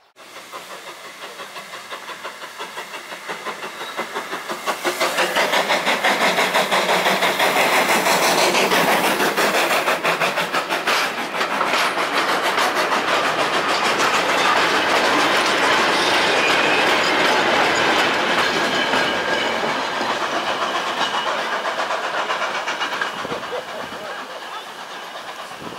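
Steam-hauled train running past close by: a regular beat of about two a second builds over the first few seconds, then carriage wheels clatter steadily over the rail joints, easing off slowly near the end.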